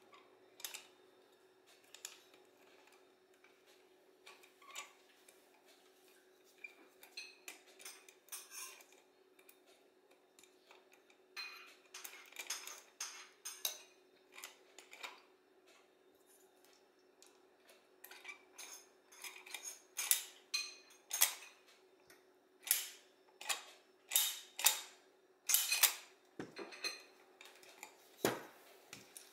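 Small metal parts of an Autolite 2100 carburetor's choke linkage clicking and clinking as they are handled and fitted. The clicks are sparse at first and come thick and fast in the second half, over a faint steady hum.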